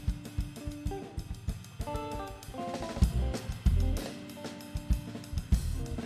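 Live band playing an instrumental passage: a drum kit with hi-hat, snare and kick drives under held electric guitar chords and a deep bass line.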